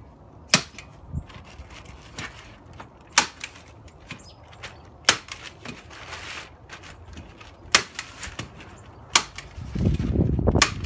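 Manual staple gun driving 3/8-inch staples through plastic house wrap into the wall sheathing: about seven sharp snaps, irregularly spaced one to two seconds apart, with the wrap rustling as it is pulled tight between shots. A louder low rumble comes near the end.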